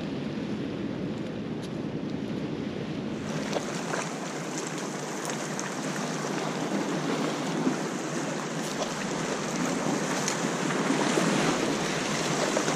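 Small waves washing and lapping against shoreline rocks, with wind buffeting the microphone.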